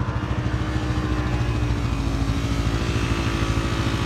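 Yamaha Wolverine RMAX 1000 side-by-side on snow tracks, its engine running steadily with a regular pulsing note as it pushes through deep snow.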